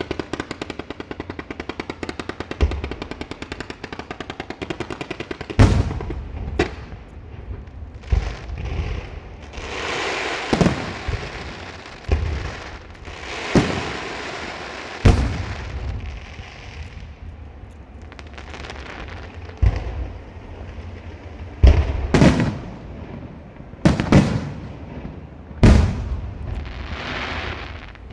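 Firecrackers: a string crackling in a fast, even run, then single loud bangs at irregular intervals, several followed by a spell of crackling.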